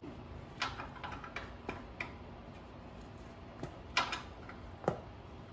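Sparse, light metallic clicks and taps of a flare-nut wrench working a brake line fitting behind a drum brake, the two sharpest about four and five seconds in.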